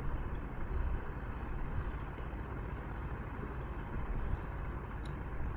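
Steady low rumble and hiss of background noise, with a couple of faint clicks about four and five seconds in.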